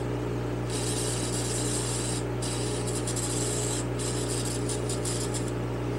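Aerosol carburetor cleaner sprayed onto carburetor parts in a tray to soak them: two hisses of about a second and a half each, then several short spurts.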